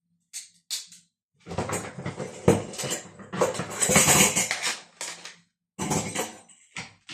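Clattering and knocking of pots, pans and dishes being handled in a kitchen cupboard, in a dense run of about four seconds starting around a second and a half in, with another short clatter near the end.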